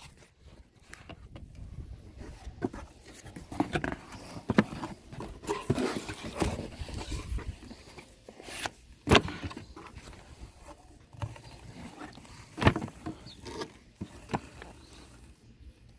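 A cardboard shipping box being opened by hand and its contents handled: irregular rustling and scraping of cardboard and packaging, with a few sharp knocks, the loudest about nine seconds in and again near thirteen seconds.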